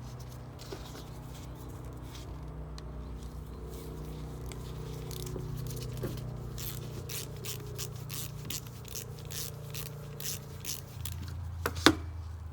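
Hand tool driving the two 7 mm screws into a plastic lawn-mower carburettor: scattered small clicks and scraping, with one sharp click near the end, over a steady low hum.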